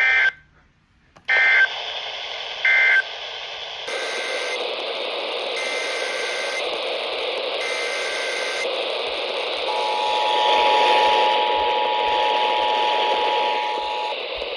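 Emergency Alert System data bursts received over the radio: three loud short bursts closing the previous alert, then, over radio hiss, three fainter bursts opening a new alert header. About ten seconds in, the steady two-tone EAS attention signal sounds for about four seconds.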